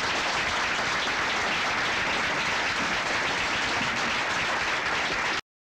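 Hearing-room audience applauding, a steady, dense clapping that stops abruptly near the end.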